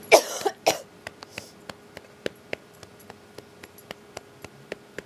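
A person coughing twice, short and harsh, right at the start. Faint, evenly spaced ticks follow, about three or four a second.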